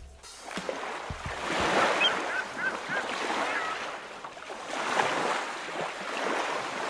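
Lake waves washing onto the shore, swelling twice, about two and five seconds in.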